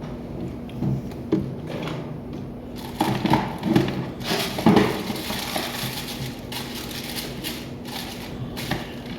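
Small tools and parts being handled on a phone-repair bench: irregular clicks, knocks and scraping, busiest about three to five seconds in, over a steady low hum.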